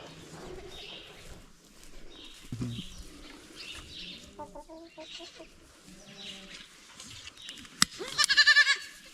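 Goat kids calling faintly with some rustling. Near the end comes a sharp click, then a newborn kid gives a loud, high, wavering bleat lasting under a second.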